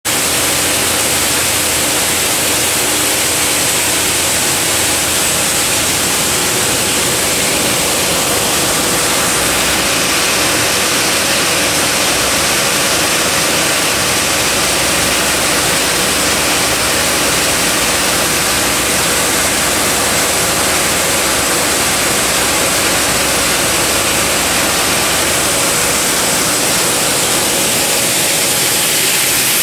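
SACMI 32-punch compression moulding machine for plastic caps running, an even, steady hiss with faint steady hum tones under it.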